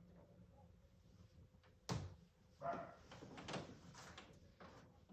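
A sharp knock about two seconds in, then scraping and several lighter knocks as someone moves around on the mat inside a plastic puppy playpen.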